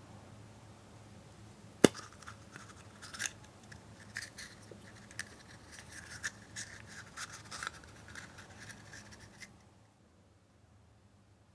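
Plastic toy capsule from a chocolate egg snapping open with one sharp click, then several seconds of crinkling paper and small plastic clicks as the toy figure is unwrapped and handled. The handling stops about ten seconds in.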